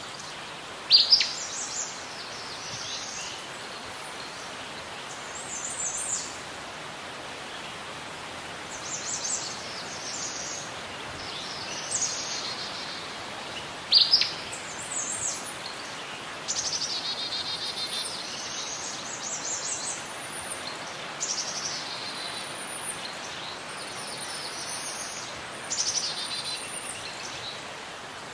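Birds singing in short high phrases every few seconds over a steady background hiss. Two sharp, loud downward-sweeping calls stand out, about a second in and again about fourteen seconds in.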